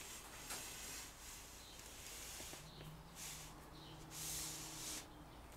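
A Land Rover Discovery door glass being worked into its steel glazing channel, which is lined with bicycle inner-tube rubber: a series of soft hissing rubs and scrapes, the longest about four seconds in.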